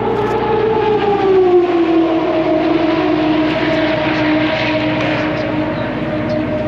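Race car engine running on the circuit at high revs, its note falling in pitch over the first two seconds and then holding steady.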